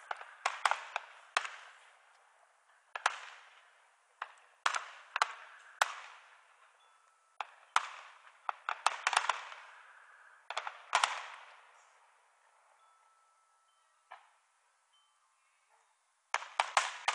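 Aerial fireworks shells exploding in irregular salvos of sharp bangs, each fading out in an echo, with a lull of a few seconds before a fresh quick cluster of bangs near the end. Heard thin and without bass through a cellphone microphone.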